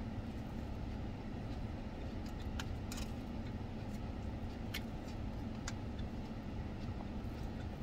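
Steady low rumble of an idling vehicle, heard from inside its cabin. Over it come a few short, faint clicks and crunches from eating a salad with a plastic fork.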